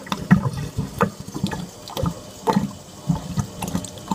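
Reef aquarium overflow standpipe gurgling in irregular glugs as water and air are pulled down it together. With the main siphon drain's valve shut, the open standpipe alone is draining the tank, which makes the gurgling noise that a Durso or a running Herbie siphon silences.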